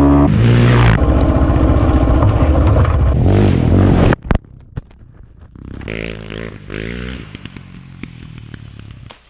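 Yamaha Raptor 700 quad's single-cylinder four-stroke engine revving hard and close. About four seconds in the sound cuts abruptly to the same engine, quieter and farther off, rising in revs twice and fading as the quad rides away.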